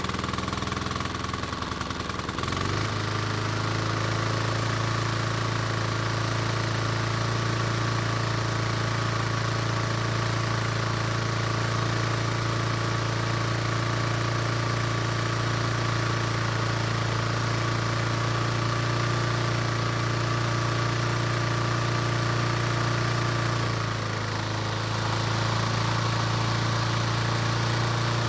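Toro commercial mower's four-stroke engine running just after starting, picking up speed about two and a half seconds in and then holding steady, with a brief dip near the end. It now starts normally, with the choke flap repaired and the fuel shutoff valve open.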